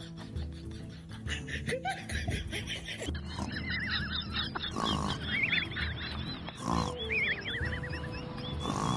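Background music with a steady beat. From about three seconds in, repeated high warbling chirps ride over it, along with three short harsh bursts.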